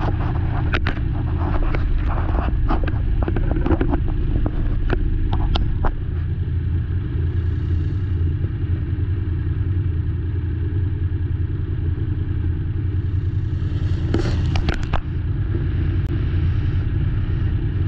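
ATV engine running with a steady low drone, heard through a mount on the machine itself. Sharp clicks and rattles come and go over it in the first few seconds and again about fourteen seconds in.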